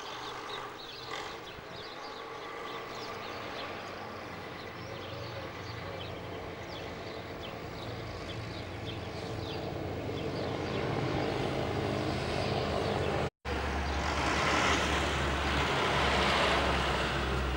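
Diesel engine of a Škoda ŠT 180 articulated tractor running as the tractor drives off, growing louder as it comes closer. About thirteen seconds in the sound drops out for a moment and comes back louder.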